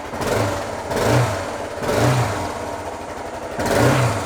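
Suzuki DR650's single-cylinder four-stroke engine, on its stock exhaust, idling and blipped four times, each rev rising and falling quickly back to idle.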